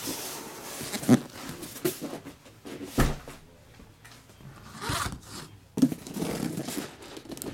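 Cardboard shipping cases being slid and scraped across a tabletop and set down, with several dull knocks, the sharpest about 1 s and 3 s in and again near 6 s.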